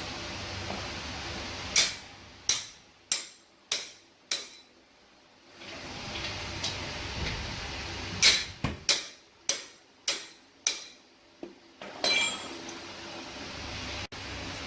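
Two runs of sharp metallic strikes, five or six in each, about two a second, each ringing briefly, like hammer blows in a workshop.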